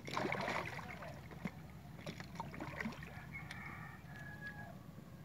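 A hooked giant snakehead thrashing at the surface beside a small boat, with a loud burst of splashing in the first second and smaller splashes and knocks after it. A steady low hum runs underneath.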